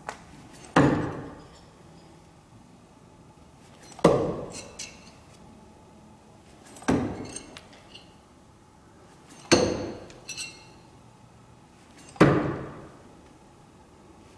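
Throwing knives, thrown without spin, striking a target five times, about one every two and a half to three seconds. Each hit is a sharp thunk with a short ringing decay and a few faint clinks after it.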